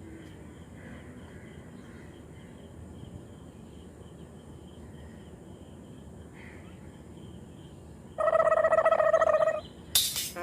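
Quiet outdoor background with faint bird chirps. Near the end a loud buzzing tone sounds for about a second and a half, followed by a sharp click.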